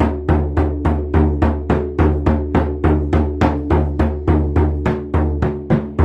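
A hand drum beaten in a steady, even rhythm of about three to four strikes a second, each beat with a deep, resonant boom.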